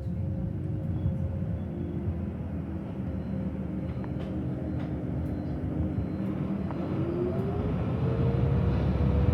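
A vehicle running with a steady rumble, its engine tone rising during the last couple of seconds as it speeds up.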